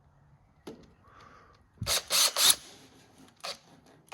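A few sharp clicks and knocks of a tool being handled as a drill is readied on a screw, loudest a quick cluster of three about two seconds in.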